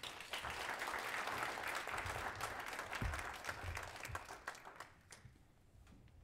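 Small audience applauding, the clapping dying away after about five seconds.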